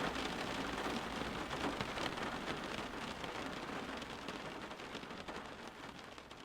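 Steady rain falling, a dense patter of drops, fading out gradually over the last few seconds.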